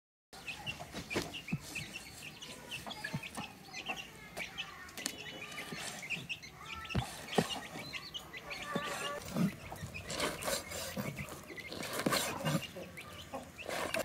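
Chickens clucking on and off, with scattered short knocks and clinks.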